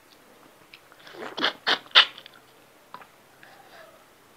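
Mouth noises of a person eating by hand, picked up close on a clip-on microphone: three loud, short crunching smacks about a second and a half in, with a few faint clicks around them.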